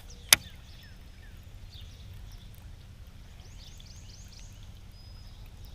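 Birds chirping and calling, with quick repeated downward-sliding notes near the middle and a short whistle near the end, over a steady low hum. One sharp click or knock about a third of a second in.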